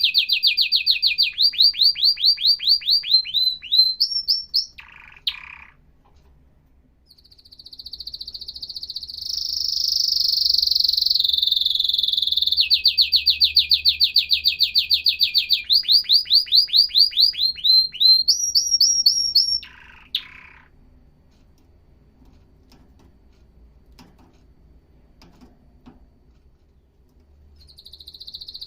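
Canary singing in fast rolling series of repeated high notes, with a short lower phrase ending each bout. One bout comes in the first few seconds and a longer one from about eight to twenty seconds; after a pause of several seconds the song starts again near the end.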